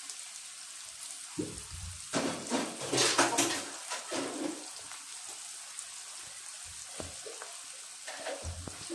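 Sliced onions frying in oil in an iron kadhai, a steady sizzle. A louder spell of knocks and rustling comes between about one and a half and four and a half seconds in, with a few low bumps near the end.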